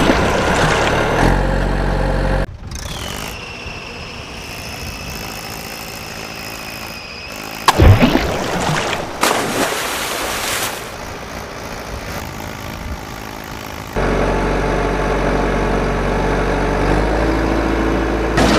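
Truck engine sound effect running steadily, dropping away for a quieter middle stretch that holds a steady high whistle. About eight seconds in comes a loud sudden splash of a toy truck hitting muddy water, with a smaller one a second later. The engine sound comes back louder for the last few seconds.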